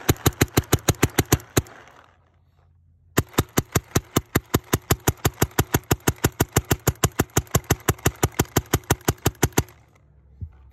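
Classic-valve Automag paintball marker firing rapid strings of shots, about seven sharp pops a second. A short string stops about two seconds in, and a longer one starts about a second later and runs until near the end.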